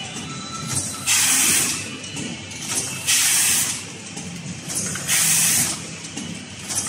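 Automatic spout-pouch filling and sealing machine running: a sharp hiss of compressed air venting from its air cylinders three times, about every two seconds, each lasting about half a second, over a steady mechanical rattle.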